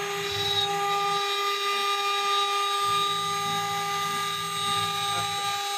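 CNC engraving machine's spindle running with a steady high whine, with a lower hum from the machine that drops out about a second in and comes back near the middle.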